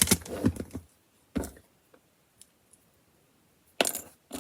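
Small plastic LEGO pieces clicking and rattling as they are handled and snapped together: a cluster of sharp clicks at first, a single click, a quiet stretch, then more clicks near the end.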